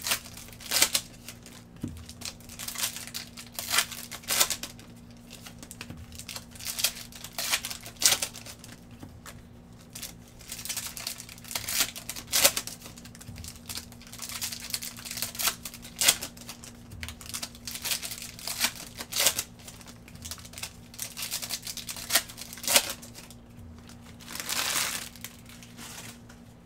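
Shiny plastic trading-card pack wrappers crinkling and tearing in gloved hands as packs are opened, in irregular crackles throughout, with a longer rustle near the end.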